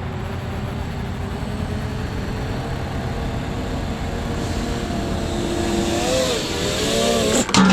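A motor vehicle's engine over a steady low rumble, growing louder with a wavering, rising pitch near the end, then cutting off abruptly.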